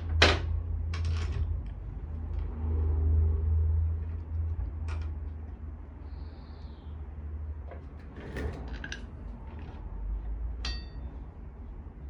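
Scattered clicks and clanks of parts and tools being handled during motorcycle reassembly, the loudest at the very start and a cluster about eight seconds in, over a steady low hum.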